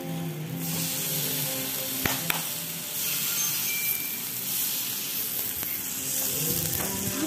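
Sausage slices and thin-sliced meat sizzling on a hot round grill plate over a portable gas stove. The sizzle gets louder about half a second in. Two sharp clicks come about two seconds in.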